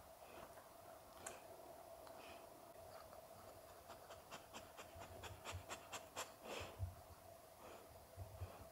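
Near silence: quiet room tone with a faint steady hum. About halfway through, a run of faint small clicks comes at roughly four a second for a couple of seconds.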